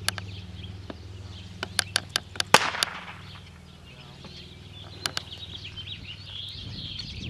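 Small birds chirping over a steady low hum. A string of sharp pops and clicks runs through the middle, the loudest about two and a half seconds in and followed by a brief hiss, with two more near five seconds.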